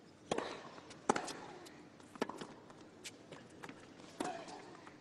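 Tennis rally on a hard court: sharp racket strikes on the ball about once a second, with fainter ticks of ball bounces and footsteps between them, over a quiet stadium.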